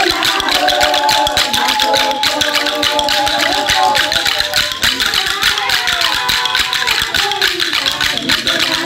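Music: voices singing over a fast, steady percussion rhythm.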